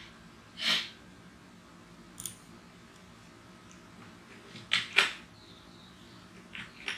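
Computer mouse clicks: a few sharp single clicks spread out, with two close together about five seconds in as the loudest, over quiet room tone. There is a short, softer hiss just under a second in.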